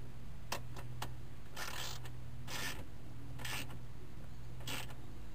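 Socket ratchet wrench tightening a nut on the window regulator inside a car door: a few single clicks, then four short ratcheting rasps about a second apart.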